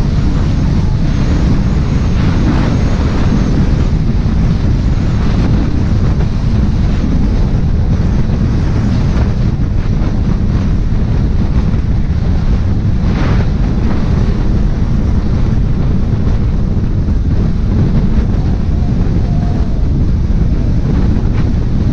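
Loud, steady wind buffeting the microphone, with a deep rumble underneath.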